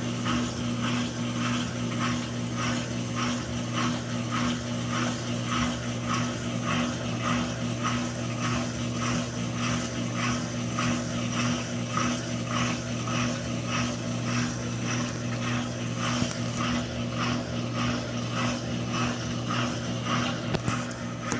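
Continental Evolution automatic washing machine washing rugs: its motor hums steadily while the agitator churns with an even rhythm of about three swishes a second.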